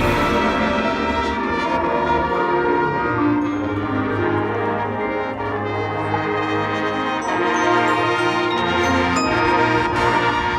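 High school marching band playing, the brass section holding full sustained chords that move from one to the next.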